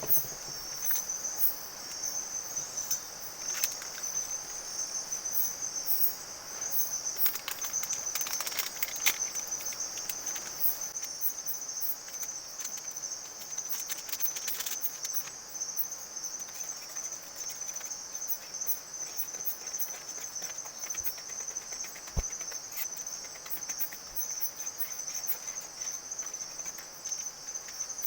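Forest crickets trilling in a steady, high-pitched chorus, with scattered sharp clicks and light knocks over it, most of them in the first half.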